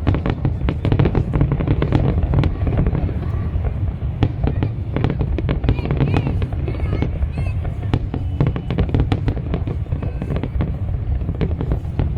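Fireworks display going off without a break: many quick bangs and crackles over a continuous low rumble.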